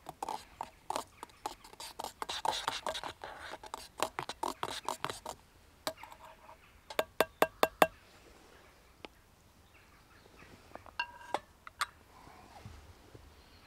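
Metal spoon stirring coffee in a stainless steel pot, clinking and scraping against its sides. The spoon is then tapped about five times in quick succession on the rim, each tap ringing; this is the loudest part. Near the end come a few lighter clinks as the spoon is set down on the metal stove.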